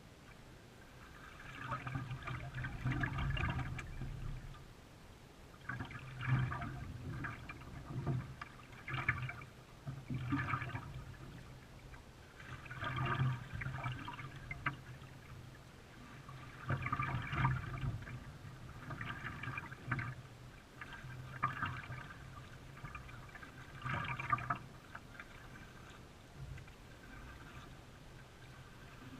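Canoe paddle strokes in water, a splash every two seconds or so, over a steady low hum.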